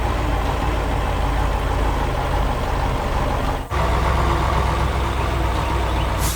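Heavy truck diesel engine running steadily with a deep low drone. It cuts out for an instant about halfway through, then carries on.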